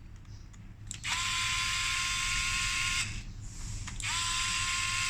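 Power screwdriver backing out the bottom screw of a mortise lock's faceplate. Its motor whines in two runs: the first lasts about two seconds, and the second starts about four seconds in. Each run rises quickly in pitch at the start and then holds steady.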